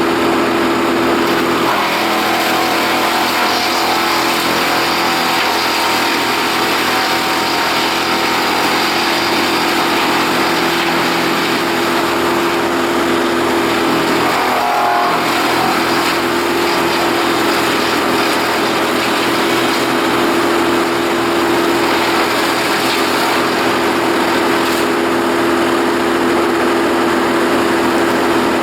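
Small engine running steadily at a constant pitch, with a brief wavering about halfway through.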